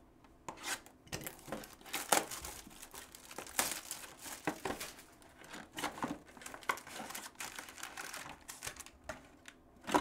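Plastic shrink wrap being torn and crinkled off a sealed Topps Tribute baseball card box, in irregular crackles and rips.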